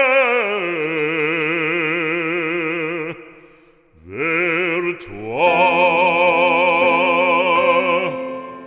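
Operatic singing in the outro music: a voice holds long notes with strong vibrato in two phrases, with a short break about three and a half seconds in.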